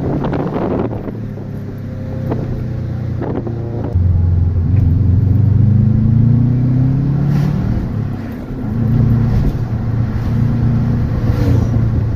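A 2003 Subaru WRX's turbocharged flat-four engine heard from inside the cabin as the car accelerates. About four seconds in the engine gets louder and its note rises, drops at a gear change a little past eight seconds, then climbs again.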